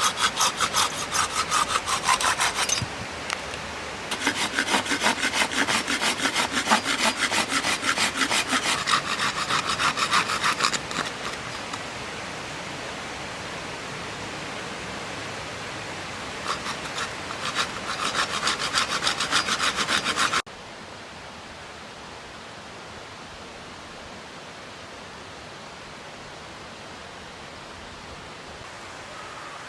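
Hand saw cutting through firewood in quick back-and-forth strokes, in three bouts with short pauses between. It cuts off suddenly near two-thirds of the way through, leaving a steady background hiss.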